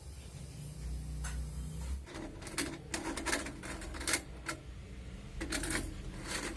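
Kitchen utensils clattering: a run of short, irregular clicks and knocks, starting about two seconds in after a low steady hum.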